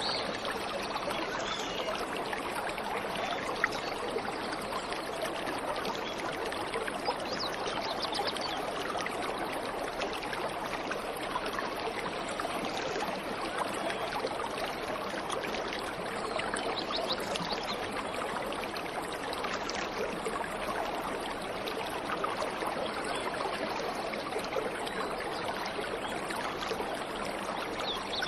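Waterfall water rushing and splashing steadily, with faint bird chirps a few times.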